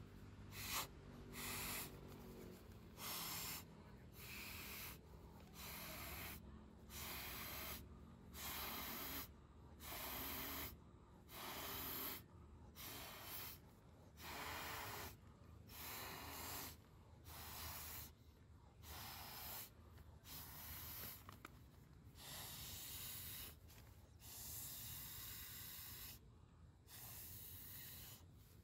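A person inflating an inflatable sleeping pad by mouth, blowing breath after breath into its valve with a breath drawn in between, about one blow every second and a half.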